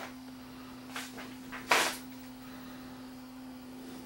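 A steady low electrical hum, with a faint click about a second in and a brief, louder rustle of handling noise a little before two seconds in.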